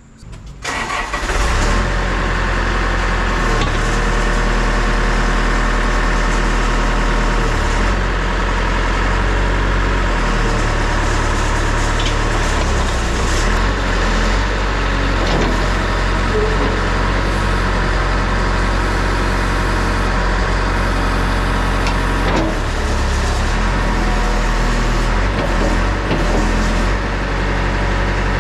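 Backhoe's diesel engine starting about a second in, then running steadily, with small changes in its note now and then.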